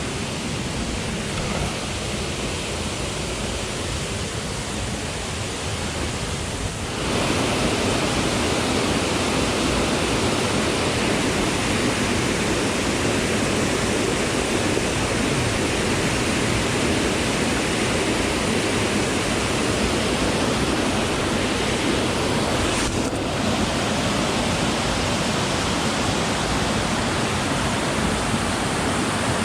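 Waterfall rushing steadily, with no wave rhythm; it jumps louder about seven seconds in.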